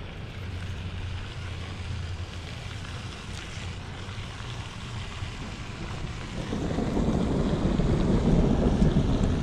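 Gusty wind buffeting the microphone ahead of an approaching rainstorm, growing stronger about six and a half seconds in.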